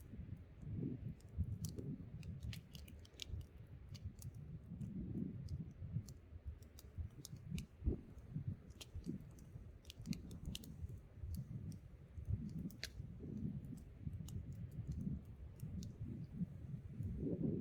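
Wood campfire crackling, with irregular sharp pops and snaps, over a low gusting rumble of wind on the microphone that swells near the end.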